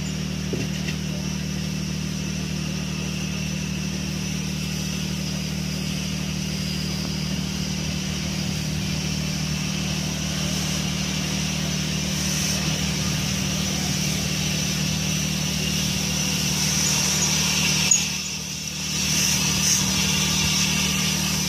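Standing steam locomotive No. 85 Merlin, a GNR(I) compound 4-4-0, hissing steam steadily over the low, even hum of a diesel railcar's engine idling. There is a single sharp knock near the end.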